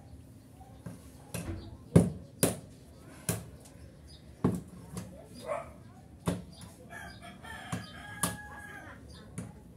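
A rooster crowing once, a held call late in the stretch, over a series of sharp knocks about once a second.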